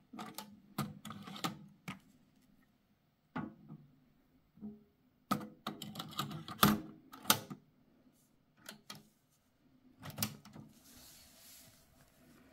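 Mechanical clicks and clacks of an Akai CS-732D cassette deck being handled: the eject button and cassette door, a cassette pulled out and another pushed in, the door clacked shut, then the piano-key transport keys latching about ten seconds in. A faint hiss follows as the deck starts recording.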